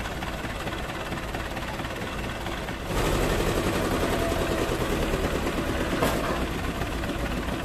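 Tractor diesel engines running steadily. About three seconds in, an engine revs up louder under load as the Escort 335 backs its front wheels off the Hindustan tractor. Near six seconds there is a single knock as its front comes back down, and the engine eases off after it.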